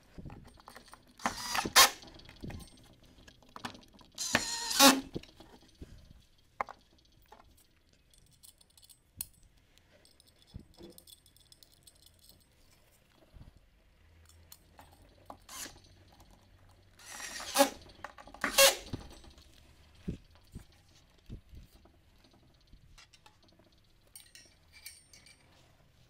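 Cordless drill-driver driving screws in short bursts of under a second: twice early on and twice more past the middle. Light clinks and knocks of metal parts and screws come in between.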